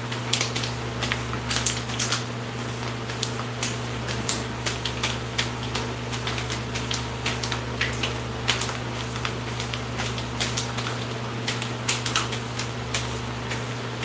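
Hair brush bristles scratching over short waved hair in quick, irregular strokes, several a second, over a steady low hum.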